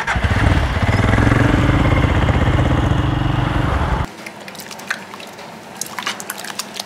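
Motorcycle engine running while riding, a steady low drone that cuts off suddenly about four seconds in. A quieter stretch follows with a few light clicks and scrapes of a ladle stirring thick dal in an aluminium pot.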